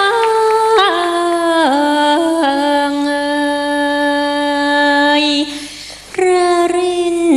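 A solo female voice sings a slow, ornamented Thai folk melody. The notes slide into place, one is held for a few seconds, and there is a short break about five and a half seconds in.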